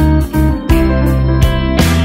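Rock and roll band recording playing an instrumental passage: guitars over sustained bass notes, with sharp drum hits.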